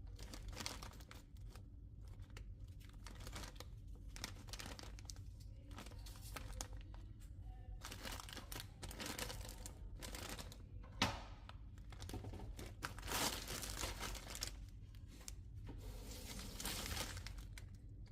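Irregular rustling and crinkling of hands at work in a kitchen, with one sharp click about eleven seconds in.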